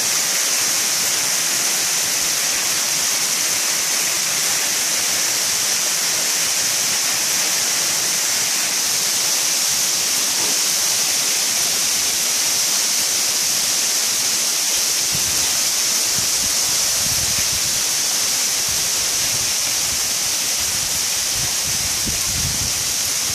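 Dense sleet falling: a steady hiss of ice pellets striking the roof, patio and yard. A low rumble comes and goes underneath in the later part.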